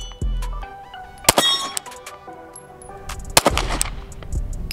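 Two 9mm Glock 43X pistol shots, about two seconds apart, over background hip-hop music with a heavy bass line.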